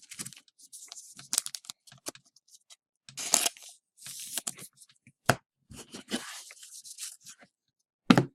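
A trading-card pack wrapper being torn open and rustled as the cards are handled, in a series of short irregular rips and rustles with a couple of sharp snaps.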